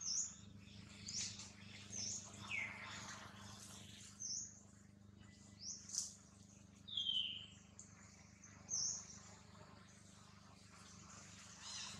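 Birds chirping in the surrounding trees: short high chirps every second or two, with a couple of longer falling whistles, over a faint steady low hum.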